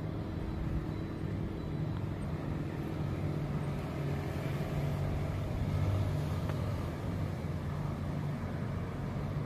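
Steady low hum of road traffic from the town below.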